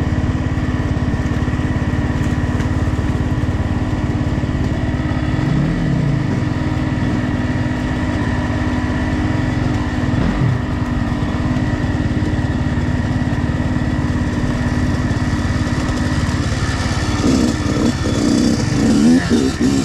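Dirt bike engine running steadily under throttle while riding a trail, with the revs dipping briefly twice. The sound gets louder and rougher in the last few seconds.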